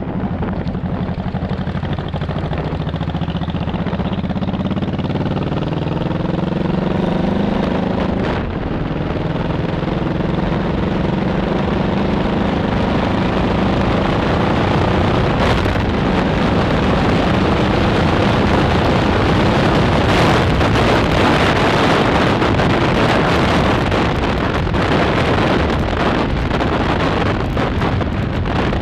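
Honda Shadow Sabre's carbureted V-twin, re-jetted with a DynoJet kit and running Vance & Hines Longshots pipes, accelerating on the road. The engine note climbs in pitch, drops at a gear change about eight seconds in, then climbs again and settles at cruising speed as wind rush grows.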